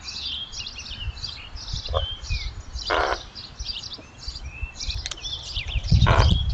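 Small songbirds chirping all through, with two short, harsh low calls from a raven: one about three seconds in, the other near the end. A low rumble builds near the end.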